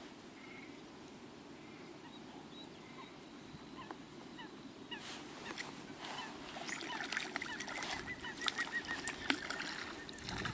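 Quiet pond ambience, then from about five seconds in a hooked small crucian carp splashing at the surface as it is played on a pole rod. Near the end a bird calls in a quick run of short, high notes.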